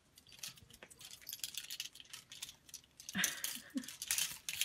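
Clothes hangers clicking and rattling against each other and the closet rod as a kitten climbs through them, with two louder bursts of clattering about three and four seconds in.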